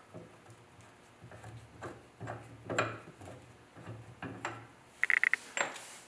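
Light metallic clicks and knocks as hands work the gas pipe fittings and control valve on a gas water heater, then a quick run of about four short electronic beeps about five seconds in.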